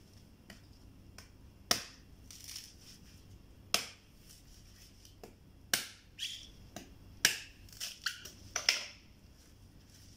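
Fibrous coconut husk being pried and ripped off by hand and with a kitchen knife: five sharp snaps of the fibres breaking, with softer tearing between them, coming closer together near the end.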